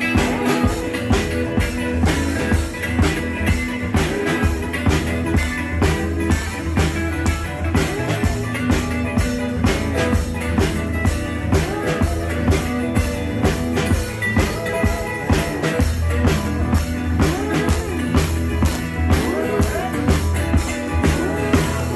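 Live rock band playing an instrumental stretch: a drum kit keeps a steady beat over bass and electric guitar.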